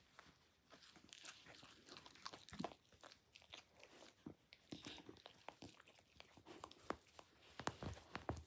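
Dachshund chewing and biting at a corduroy plush toy, working at its stuffing: faint, irregular crunching and clicking of teeth on fabric.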